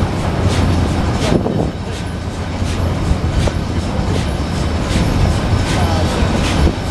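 Steam train running at speed, heard from the tender of a Sri Lanka Railways B1A steam locomotive: a steady low rumble with many sharp clicks from the wheels over the rails.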